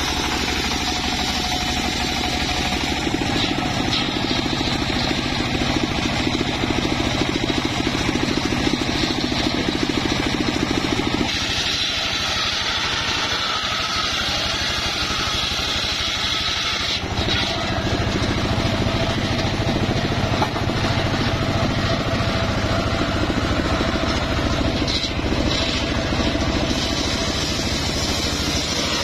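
A homemade engine-driven circular sawmill (serkel) running steadily as its large blade cuts through mahogany logs. The drone changes character twice, about a third of the way in and again past the middle.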